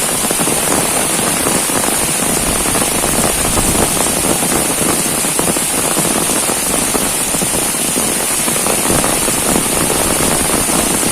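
Heavy rain pouring steadily, a dense continuous patter of drops with a hissing top.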